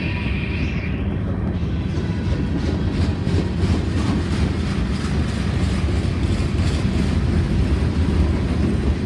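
Freight train's boxcars rolling past close by: steady noise of steel wheels on the rails, with a brief high squeal in about the first second.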